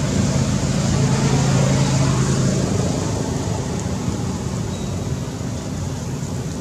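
A steady low motor hum and rumble, like a motor vehicle's engine running, loudest around two seconds in and then easing off.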